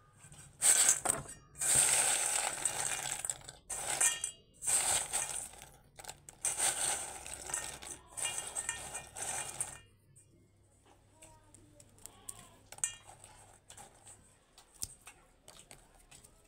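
Crisp fried namak pare being stirred and tossed in a stainless steel bowl, the pieces rattling and clinking against the metal in several long bursts. After about ten seconds only a few scattered clicks remain.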